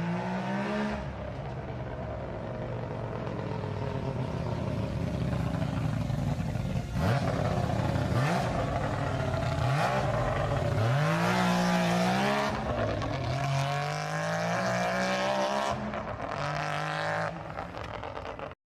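Mazda 20B three-rotor rotary engine in a Jaguar E-Type, accelerating hard past with its pitch climbing in several quick rising sweeps, loudest in the middle, then falling away near the end.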